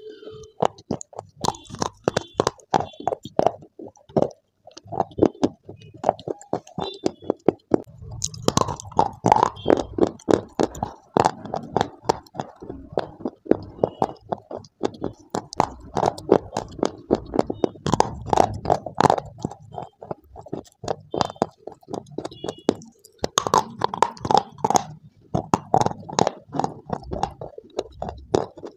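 Dry clay being bitten and chewed right at a clip-on microphone: a dense run of sharp, crisp crunches and crackles, heavier in several bursts of vigorous chewing.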